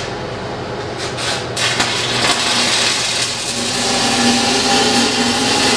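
Stick-welding arc crackling steadily as a tack weld is laid on a steel pipe joint, the machine set to about 95 amps; the arc strikes about a second and a half in.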